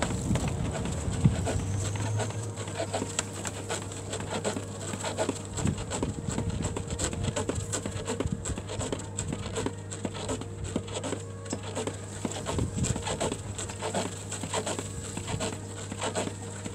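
Trainer-shod feet tapping and scuffing on the ground in quick, irregular strikes as a person does mountain climbers, over a steady low hum.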